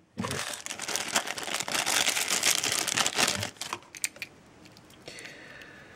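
Plastic packaging crinkling and rustling as a wired headset in its plastic bag is taken out of a cardboard box and unwrapped, dying down to quieter handling about three and a half seconds in.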